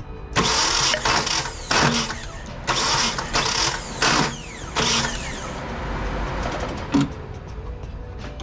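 Nissan KA24DE four-cylinder engine cranked over on its starter for about five seconds in uneven pulses, spark plugs out for a compression test on cylinder two, then stopping; a single sharp click follows about seven seconds in.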